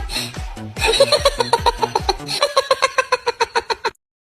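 Bouncy background music of short, evenly spaced plucked notes, stopping abruptly near the end.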